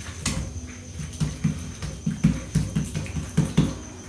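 Plastic bag of coarse salt shaken and tapped over raw picanha slices to salt them: a run of about ten soft, uneven thumps over two and a half seconds, a few with a sharper click.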